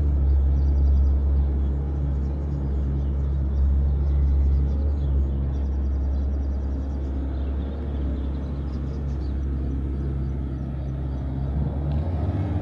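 Motorboat engine running steadily with a low, even drone.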